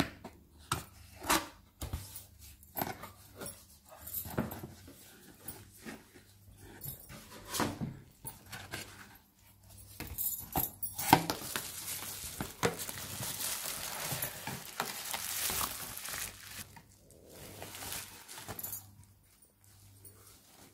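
Hands opening a cardboard box: flaps and lid knocking and scraping, with a sharp knock about eleven seconds in, then several seconds of plastic packaging rustling and crinkling as bubble wrap and a foam-wrapped item are handled.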